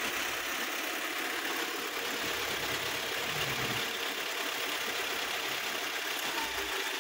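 GAZelle refrigerated van's engine running steadily at idle with the refrigeration unit's compressor engaged, while the system is being charged with refrigerant.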